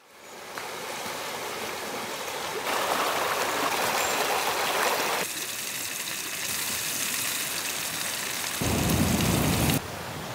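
Campfire burning: a steady rushing, hissing noise that jumps abruptly in level and tone several times.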